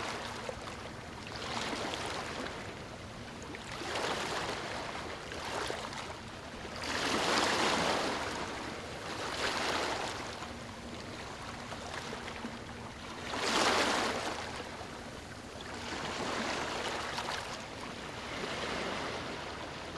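Ocean waves washing onto a shore, surge after surge every two seconds or so, two larger waves breaking louder about a third and two thirds of the way through.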